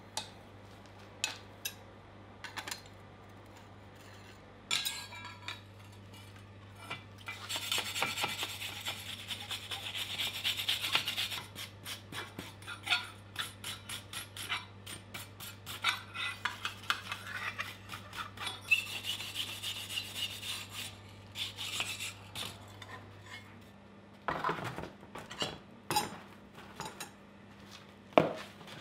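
Scattered light metal clinks, then long runs of fast rasping strokes scraping over the steel of a hand-forged hoe blade, stopping and starting every few seconds. Near the end, plastic crinkling as a bag is pulled off a tin.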